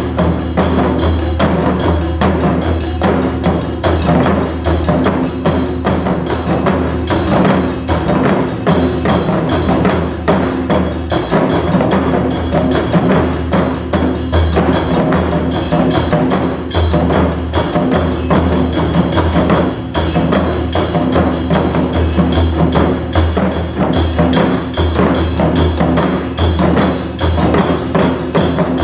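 Japanese taiko drumming in a modern arrangement, fast dense strikes over a sustained low backing, without shouted calls.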